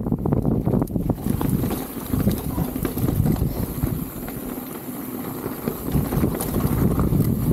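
Wind buffeting the action camera's microphone while a Specialized Status 160 mountain bike rolls down a dirt trail, its tyres rumbling on the ground and the bike rattling with quick clicks over bumps. It eases off for a couple of seconds in the middle, then picks up again.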